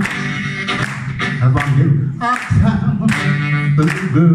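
Blues harmonica amplified through a vocal microphone, playing long held notes with several bent pitches that slide down and up.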